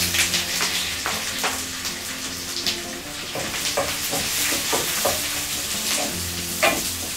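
Chopped onion and garlic sizzling in hot oil in a pan, a steady frying hiss with scattered short knocks of stirring.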